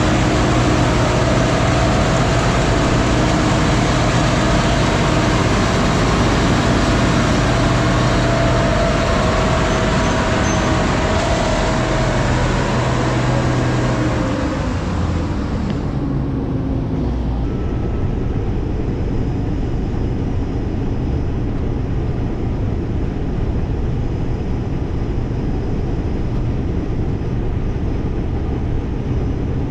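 Heavy farm machinery running steadily under load, a low engine drone with a broad hiss over it. About halfway through the hiss fades out and the sound turns duller and a little quieter.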